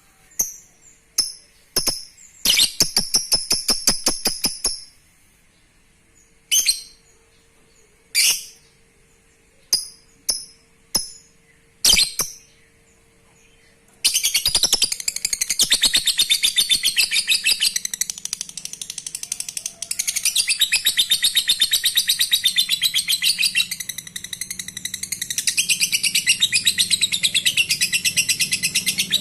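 A lovebird calling: a few short, shrill chirps and a brief rapid trill, then from about halfway a long, unbroken, rapid chattering trill. This is the 'ngekek panjang' that keepers prize in a male lovebird and play as a lure to set other lovebirds calling.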